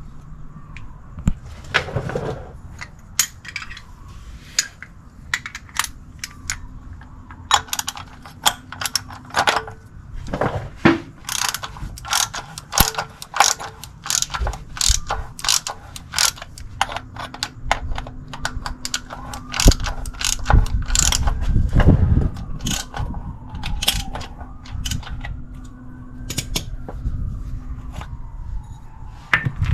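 3/8-inch ratchet clicking in irregular runs, with clanks of metal tools, as a cup-type oil filter wrench loosens the oil filter. Faint tones that slowly rise and fall sound behind it.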